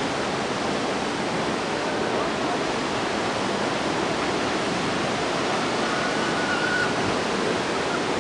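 Yosemite Falls in torrential late-spring flow: a steady roar of falling water and spray.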